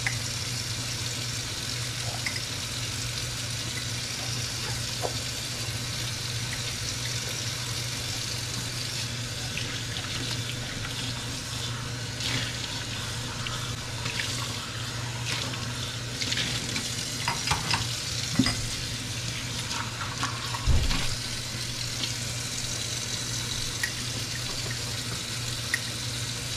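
Kitchen faucet running into a stainless steel sink while dishes are rinsed and scrubbed by hand, with scattered clinks of dishware and one louder knock about three quarters of the way through.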